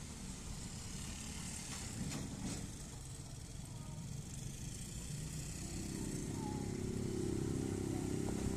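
Small motorcycles riding across a railway level crossing, one engine growing louder as it approaches near the end, with a couple of light knocks about two seconds in.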